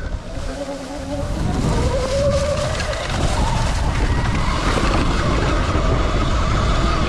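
Sur-Ron electric dirt bike's motor whining as it accelerates, the pitch rising steadily over the first few seconds and then holding high, over heavy wind rumble on the microphone.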